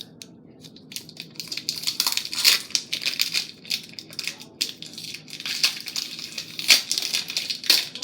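Hands crinkling and squeezing a slime-package item: a dense run of crackles and clicks starting about a second in, with a few louder crackles along the way.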